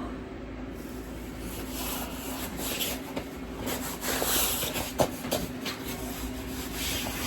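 Clothing fabric rustling and rubbing close to the microphone, with scattered small handling clicks, as a heated jacket is handled, over a steady low hum.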